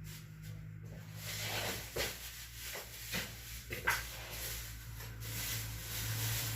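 Small parts being handled by hand: rustling and light clicks, with one sharper click about four seconds in, over a low steady hum.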